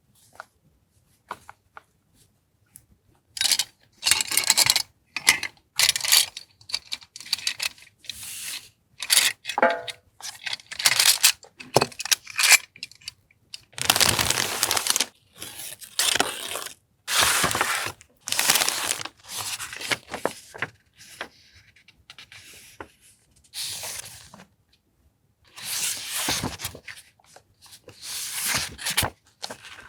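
Paper or plastic stationery packaging being torn open and handled by hand: a run of irregular tearing and rustling strokes with short pauses between, starting about three seconds in.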